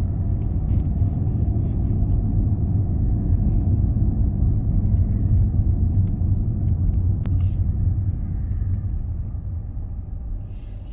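Road and engine rumble inside a moving car's cabin, a steady low drone that eases off over the last few seconds.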